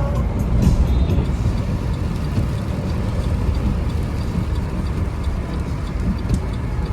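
Steady road noise of a moving car heard from inside the cabin: a low rumble of tyres and engine that holds even throughout.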